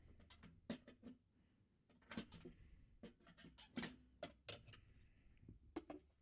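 Faint, irregular clicks and scrapes of a flathead screwdriver prying the small metal retaining spring out of a plastic glove box handle.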